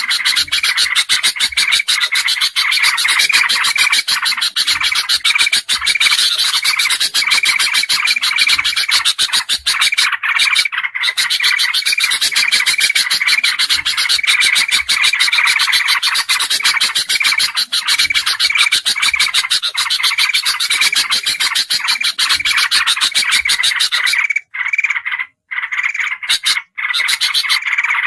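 Loud, dense chorus of bulbul calls from a bird-lure recording that mixes golden bulbul (kutilang emas), crested bulbul and yellow-vented bulbul (trucukan). It is a fast, continuous chattering and chipping with a repeated call note running through it, and it breaks off a few times briefly near the end.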